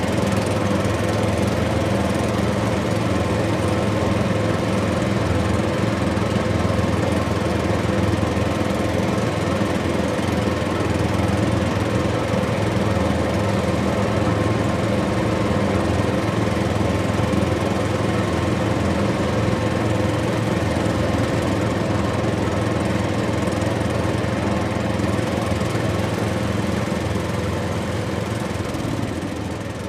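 Heavy machinery's diesel engine running steadily at a constant speed, a continuous drone with a steady hum in it.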